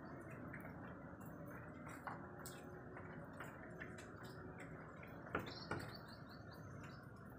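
Faint outdoor ambience with scattered light drips. About five seconds in, two sharp taps as a rooster's beak pecks the wet tiled ledge, followed by a brief run of high bird chirps.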